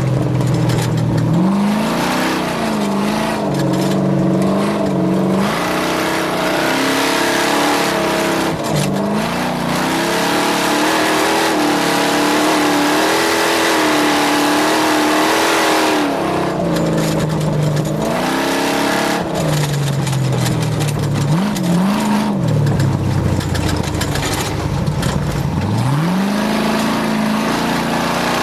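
Racing engine revving hard, its pitch climbing and dropping again and again as it speeds up and eases off, over a steady hiss.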